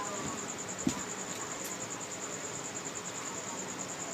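Insect trill, a steady high pulsing tone that runs evenly throughout, with a single short knock a little under a second in.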